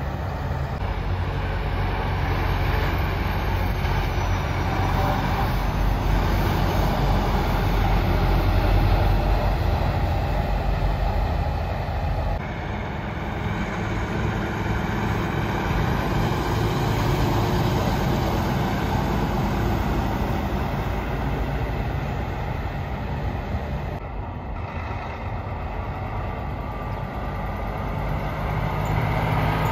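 Diesel tractor-trailer trucks driving past one after another, their engines running steadily as they pull away. The sound changes suddenly about twelve seconds in and again at about twenty-four seconds.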